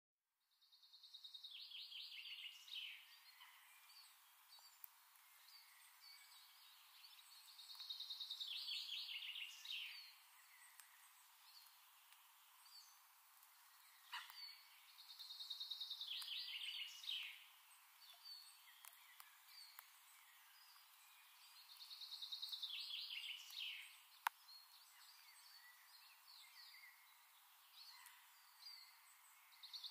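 Faint bird song: a high trilled phrase that falls away at the end, repeated about every seven seconds, with scattered soft chirps in between.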